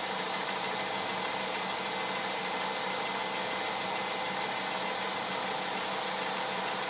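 Wood router mounted in a lathe tool post as a grinder, its motor running steadily at speed as the stone grinds the chuck jaws, with the lathe turning the chuck at its lowest speed.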